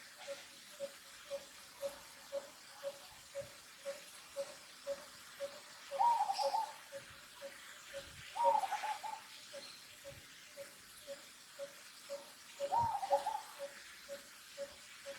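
Baby macaque crying three times in short, wavering coo-like calls, the second one loudest, over a steady low tick repeating about twice a second.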